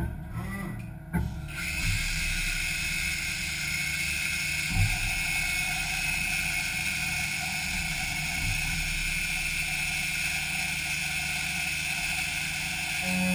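Doosan Lynx 220 LY CNC mill-turn lathe machining an aluminium sprocket: after a few knocks, a steady high whine over a hiss sets in about a second and a half in and holds, with a single knock about five seconds in.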